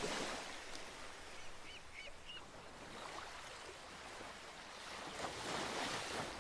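Small waves washing over a coral-rubble beach, a soft even surf hiss that swells a little near the end. Three short high chirps about two seconds in.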